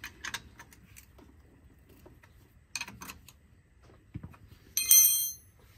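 Scattered small clicks and knocks of objects being handled, with one short, loud, high-pitched ringing squeak near the end.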